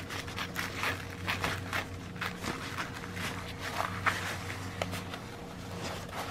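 A folded paint-by-numbers canvas being unfolded and smoothed flat by hand: irregular soft rustles and brushes of the cloth. A steady low hum runs underneath.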